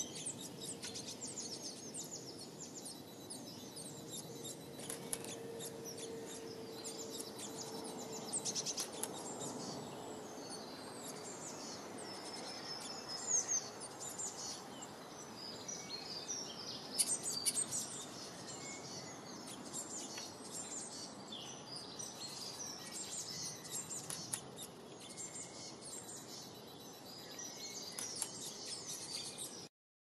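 Birds chirping and twittering, many short high calls overlapping, over a steady hiss of background noise.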